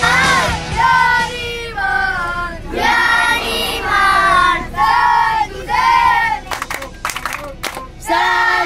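A group of children singing a song together in unison, in drawn-out phrases of about a second each, with a few sharp claps about two-thirds of the way through before the singing picks up again.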